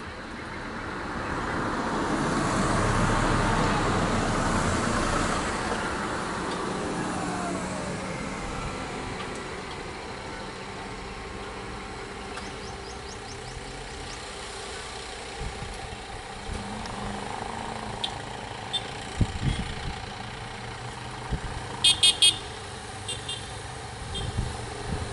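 Road traffic: vehicle and motorcycle engines running, swelling as one passes in the first few seconds, then settling to a steady hum. Near the end a vehicle horn gives three short beeps.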